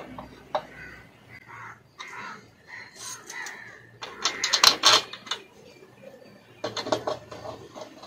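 A couple of sharp clicks at the start as a hand handles the washing machine motor's stator. Then harsh, rapidly pulsed animal calls, loudest about halfway through and again near the end.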